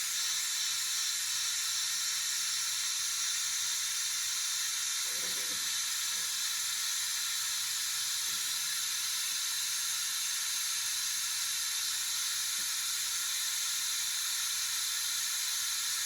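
Steady white-noise hiss used as a test signal for a 10-metre SSB transceiver, thin in the low end with most of its energy in the upper range.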